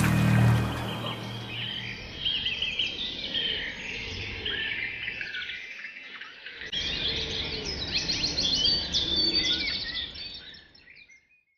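Songbirds singing: several birds chirping and trilling over one another, with quick rising and falling notes. Music fades out in the first second or so, and the birdsong fades away just before the end.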